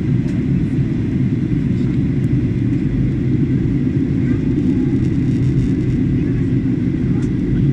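Steady low rumble inside the cabin of a Boeing 737-800 in descent: the CFM56-7B jet engines and the airflow past the fuselage, heard from a window seat.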